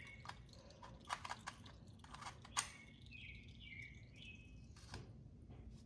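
Faint scattered clicks and light taps, the sharpest about two and a half seconds in, with a small bird chirping a quick run of short calls in the middle.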